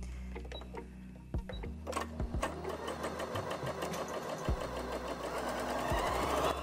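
Janome Memory Craft 6700P sewing machine stitching a straight seam through cotton, its needle mechanism running with a fast, even clatter that speeds up and grows louder as it is run up toward its top speed of 1,200 stitches a minute.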